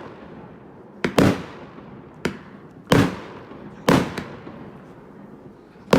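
A 30 mm firework cake (Klasek Garden Fireworks, 128 shots) firing: about six or seven sharp bangs, one every second or so, some loud and some smaller, each trailing off in a short echo.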